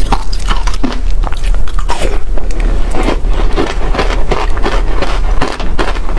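Freezer frost ice being bitten and chewed: a rapid, unbroken run of crunches.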